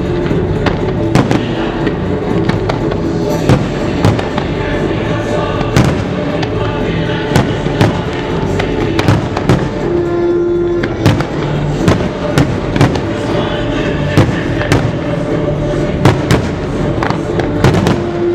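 Fireworks display: aerial shells bursting one after another in a dense string of sharp bangs, over loud accompanying music.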